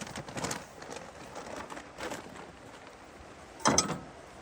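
Handling noises from food preparation: scattered rustles and light clicks, with a louder short clatter a little before the end.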